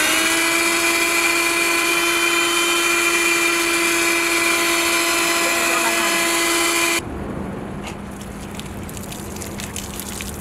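Handheld car vacuum switching on, its small motor spinning up to a steady high whine as it sucks spilled liquid off a rubber floor mat. The whine stops abruptly about seven seconds in and gives way to a quieter rushing noise with scattered ticks, as water is poured over the mat.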